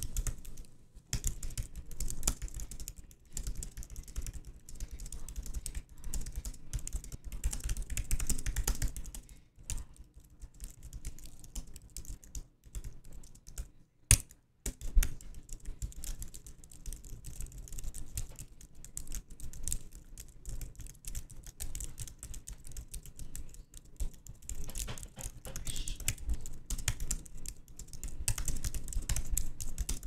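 Computer keyboard being typed on, a fast patter of key clicks. It comes in dense runs at the start and near the end, with a sparser stretch in the middle and one single louder click about halfway through.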